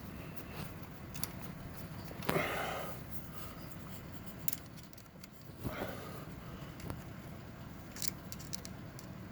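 A few light, irregular metallic clicks and scrapes: a screwdriver probing against metal parts of the transmission while trying to reach the push-button shifter cable's retaining clip.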